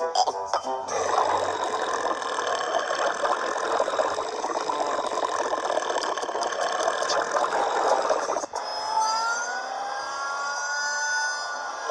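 One long, rough burp lasting about seven and a half seconds that cuts off suddenly, followed by a higher sound of several rising, gliding pitches.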